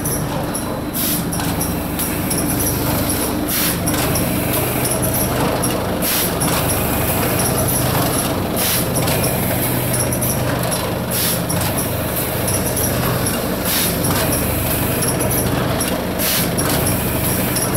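ITALPACK PACK25 flour packing machine running, filling 1 kg and 2 kg paper bags: a steady mechanical hum from its rotary bagging carousel, with short, sharp hisses every two to three seconds.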